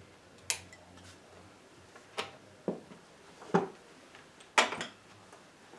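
Handling noise as a person gets up from a chair with an electric guitar: about five sharp knocks and clatters spread over several seconds, the loudest near the end. A faint low hum fades out about a second in.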